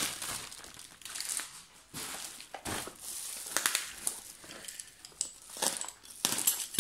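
Plastic bubble wrap and a plastic mailing bag crinkling in the hands as a parcel is unwrapped, in irregular bursts with sharp crackles and some tearing.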